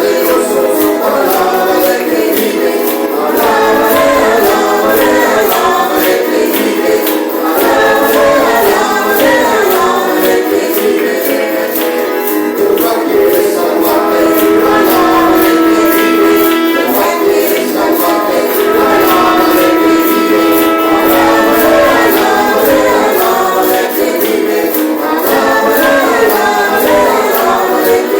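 Congregation singing a praise song together, with a tambourine keeping a steady beat.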